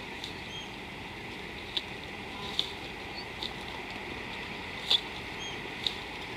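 Outdoor bush ambience: a steady hiss with about five sharp clicks at irregular intervals, the loudest about five seconds in, and a couple of brief high chirps near the start and near the end.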